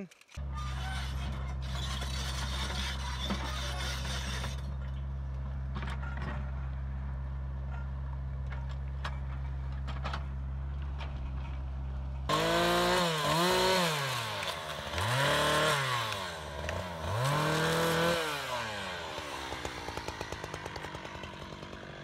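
Chainsaw idling with a steady low hum, then about twelve seconds in revving up and down several times, as in cutting.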